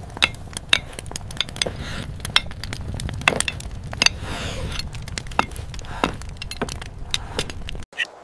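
Busy handwork sounds: irregular clinks, taps and knocks of tools on wood and stone, a few a second, over a low rumble. The sound cuts off abruptly just before the end.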